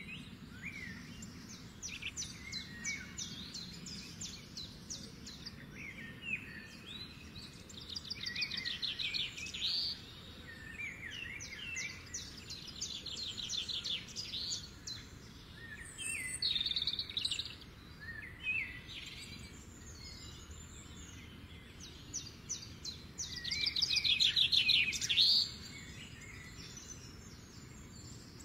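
Birds chirping and singing, with rapid trilled phrases coming back every few seconds, over a steady low background hum.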